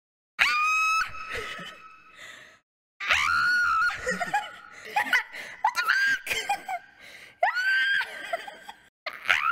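High-pitched squealing from a young woman's voice: about six drawn-out squeals, each sliding sharply up and then held at one pitch, with short breaks between them.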